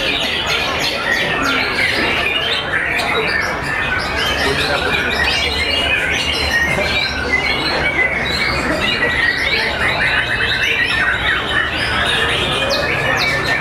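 Several white-rumped shamas (murai batu) singing at once: a dense, unbroken chorus of overlapping whistles, chirps and rapid trills.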